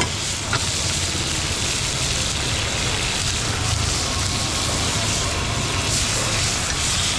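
Beef sizzling on a hot cast-iron plate and in a wok over gas burners: a steady frying hiss with a low, even rush beneath it.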